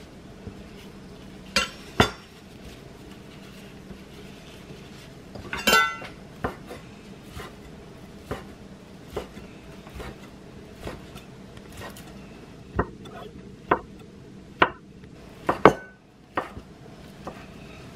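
Kitchen knife chopping a thin egg omelette into strips on an end-grain wooden cutting board: irregular sharp knocks about once a second, a few louder than the rest.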